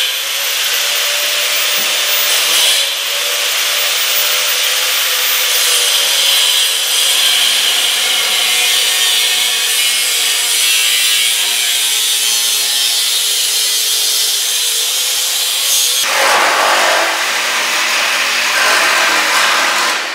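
Angle grinder with an abrasive cut-off wheel cutting through a car's steel exhaust pipe: a loud, steady grinding hiss with a high whine, the sound changing about 16 seconds in.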